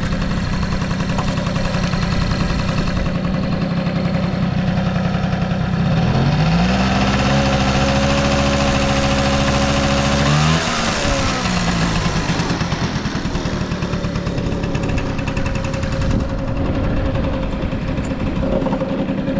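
Early Honda Tact AB07 scooter's small two-stroke engine idling, revved up once and held at a steady higher speed for about four seconds, then dropping back to idle. It runs with no abnormal noises.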